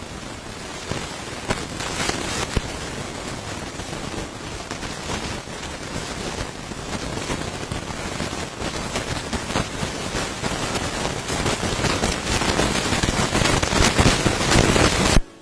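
Dense crackling noise full of sharp clicks, growing steadily louder and then cutting off suddenly near the end.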